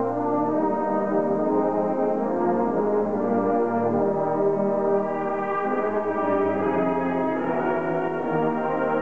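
High school marching band playing slow, held brass chords that change every second or two.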